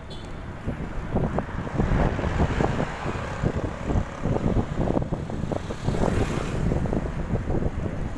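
Wind buffeting the microphone of a camera riding along on a moving bicycle: an uneven, gusty rush of noise.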